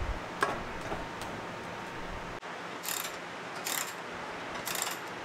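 A moped seat being fitted and fastened: a sharp clunk about half a second in, then three short bursts of metallic clicking as the seat clamp under it is tightened.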